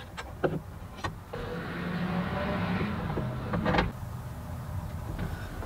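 Table saw blade being fitted: a few light metal clicks as the blade and arbor hardware are handled, then a steady mechanical whir with a low hum for about two and a half seconds before it drops away.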